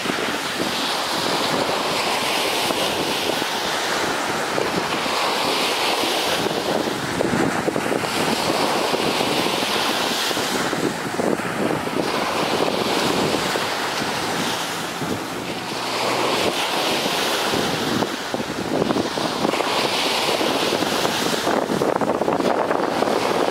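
Surf washing onto a sandy beach, a steady hiss that swells every few seconds as waves break, with wind on the microphone.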